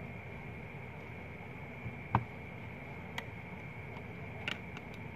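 A few small sharp clicks, the loudest about two seconds in, from a metal pry blade and a plastic spudger working on an opened Huawei Y9 Prime smartphone. Under them is a steady hiss with a faint high whine.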